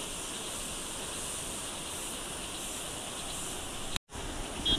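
A steady, high chorus of insects such as crickets. The sound cuts out for a moment about four seconds in, and two short high chirps come near the end.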